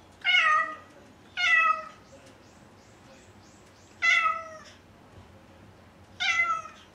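Domestic cat meowing loudly four times, each call about half a second long and sliding down in pitch at the end.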